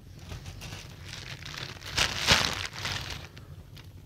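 Crinkling, rustling handling noise, like a plastic bag or wrapping being handled. It swells to its loudest about two seconds in, with small ticks through it.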